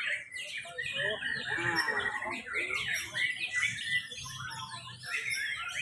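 Many caged white-rumped shamas (murai batu) singing at once, a dense tangle of overlapping whistles, chirps and quick falling notes.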